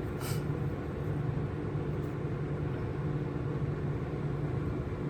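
Steady low background hum with an even hiss, and one brief short noise about a third of a second in.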